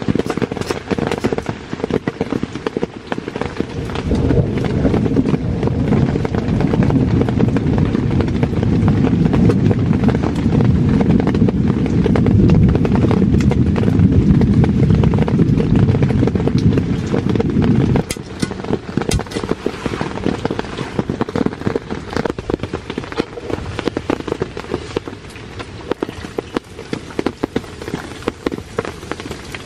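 Kitchen knife chopping on a wooden cutting board, a quick run of sharp taps, over steady rain on the tent. A loud low rumble builds a few seconds in and cuts off abruptly about 18 seconds in.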